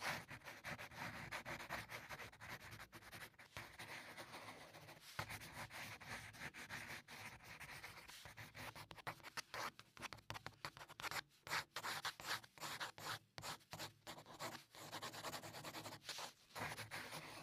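A pen drawing on paper: faint, irregular scratchy strokes that come quicker and sharper in the second half.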